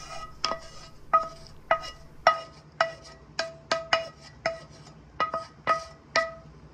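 A spatula knocking and scraping against a frying pan held over a plate, about fifteen quick clinks at an uneven pace of two or three a second, each ringing briefly; the knocking stops near the end.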